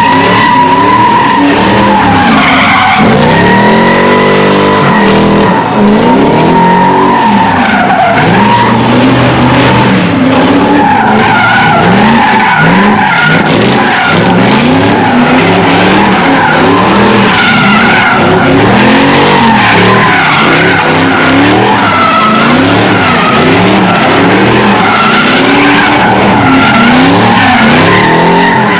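Cars drifting and spinning donuts: tires squealing in a long, continuous screech while the engines rev up and down over and over.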